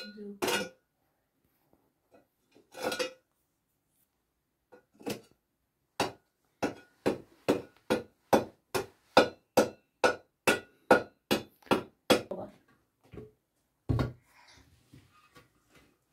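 Hand broom sweeping an earthen floor into a dustpan: a run of short, quick brush strokes, about three a second, with a few single strokes before it and a heavier knock near the end.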